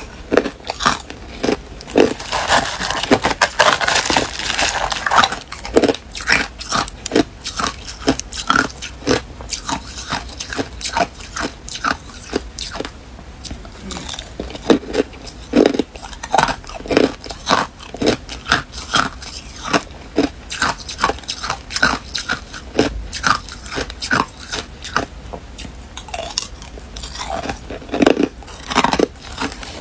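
Crushed ice being bitten and chewed, close up: a dense, irregular run of sharp crunches, busiest in the first few seconds and again near the end.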